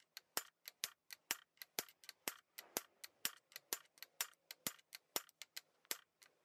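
Steel hand hammer beating on a steel punch set against a truck differential assembly to knock it apart: quick, steady metal-on-metal blows, about four a second, alternating louder and softer.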